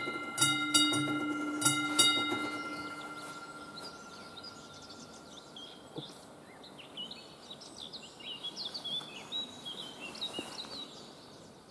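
AŽD 71 level-crossing warning bell strikes its last few strokes in the first two seconds, then stops as the crossing warning ends, its ringing dying away over the next couple of seconds. Birds then sing and chirp.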